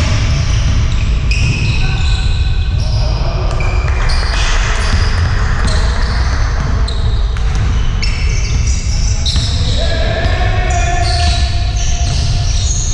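Basketball being played on a hard indoor court: the ball bouncing, sneakers squeaking in short high chirps, and players calling out, all echoing in a large hall over a steady low rumble.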